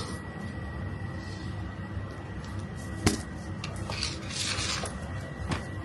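Belongings being handled while packing: a sharp knock about three seconds in, a short rustle a second later, and another light knock near the end, over a faint steady high whine.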